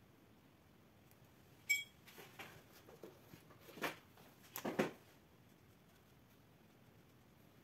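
Small handling sounds of art supplies on a craft desk as a fine paintbrush is set down and a marker picked up: a sharp click nearly two seconds in, some soft rustling, then two louder knocks around four to five seconds in.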